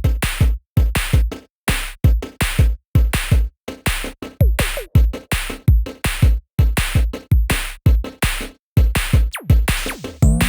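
Electronic background music with a heavy, choppy drum-machine beat and deep kick drums.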